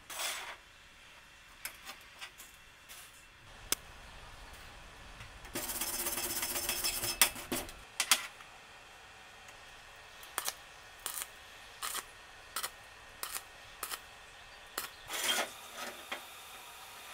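Square steel tube pieces handled on a steel workbench: scattered metallic clicks and clinks, a rattling scrape of metal on metal lasting about two seconds a third of the way in, then a string of light taps about two a second.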